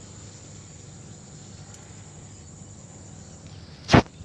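A single sharp pop from an air gun firing, about four seconds in, over a steady high insect-like drone.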